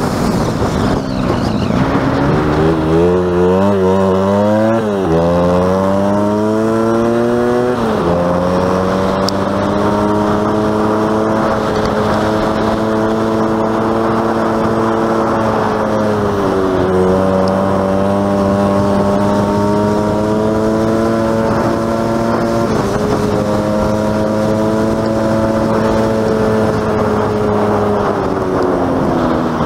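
Honda FourTrax ATV's single-cylinder four-stroke engine running under way. The revs climb and fall back sharply twice in the first eight seconds, then hold steady, dipping briefly a few times.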